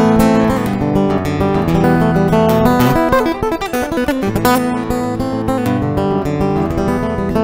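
Background guitar music: plucked and strummed chords and notes ringing on.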